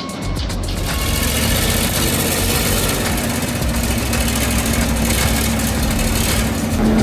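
Heavy machine engine running steadily, with a low hum that strengthens near the end.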